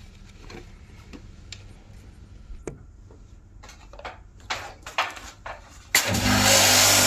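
Scattered clicks and knocks of equipment being handled, then about six seconds in an electric pressure-washer pump starts with a loud steady hum and the hiss of its water jet spraying the air-conditioner unit.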